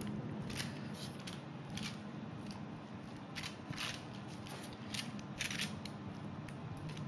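Short dry crinkles and rustles at irregular intervals from handling a piping bag over a baking-paper-lined tray while piping choux paste, over a faint steady room hum.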